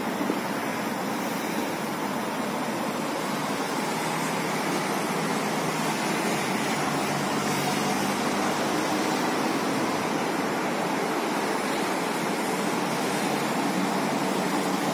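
Distant multi-lane highway traffic heard from high above: a steady, even rush of noise with no single vehicle standing out.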